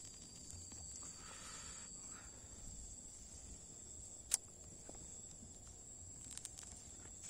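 Faint steady high-pitched chirring of insects, with soft rustling as weeds and soil are pulled by hand around a young durian tree, and one sharp click about four seconds in.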